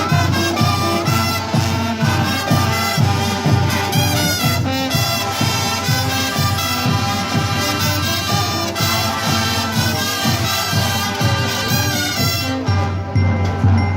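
Marching brass band playing, brass over a steady beat; the bright high end drops away near the end.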